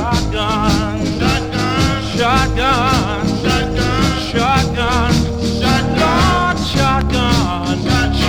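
Soul record playing: a stretch with no words sung, with a steady beat under a wavering lead melody line.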